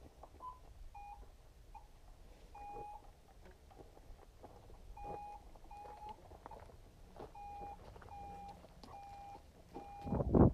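A hang glider's audio variometer giving short, faint beeps at one steady pitch, about a dozen of them at irregular intervals. Near the end a sudden loud rush of noise comes in.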